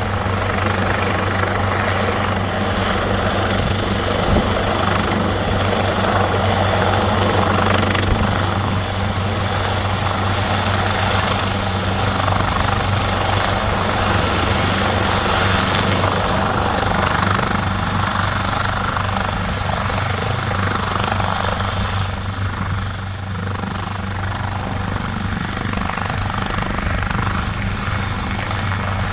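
Police helicopter running loud and steady, its rotor beating low under a high turbine whine, easing off slightly about three quarters of the way through.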